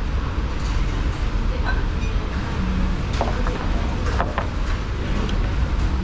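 Steady low rumble of restaurant background noise, with a few short clicks and clinks from about halfway through.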